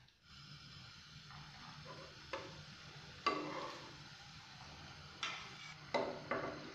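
Turmeric-coated fish pieces sizzling in a little hot oil in a non-stick frying pan while being shallow-fried. About five sharp taps of a metal spatula against the pan as the pieces are laid in, each followed by a brief swell of sizzling; the loudest comes about three seconds in and two more near the end.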